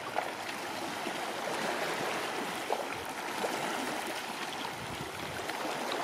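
Small sea waves lapping and trickling among shoreline rocks: a steady wash of water with many small splashes and gurgles.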